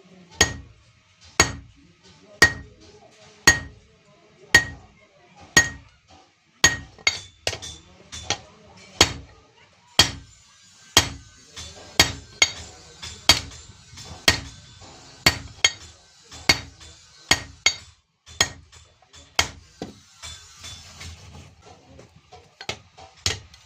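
Blacksmith's hand hammer striking iron on an anvil while forging a blade, each blow ringing. Steady strikes about one a second, then from about seven seconds in quicker blows with lighter taps between them.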